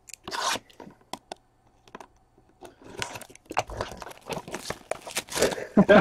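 Trading-card pack wrapper crinkling and tearing as hockey card packs are opened, with cards clicking and sliding against each other in quick, uneven bursts.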